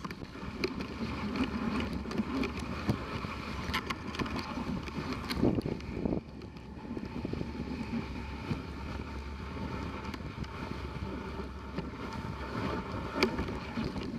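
Dog sled gliding over a packed snow trail: a steady hiss and scrape of the runners, with scattered clicks and knocks from the sled and wind on the microphone.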